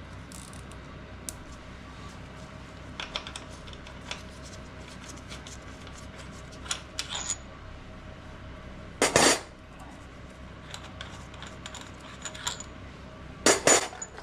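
Brake pads clinking as they are worked out of a Brembo front brake caliper: scattered light metallic ticks, with two louder clatters about nine seconds in and near the end.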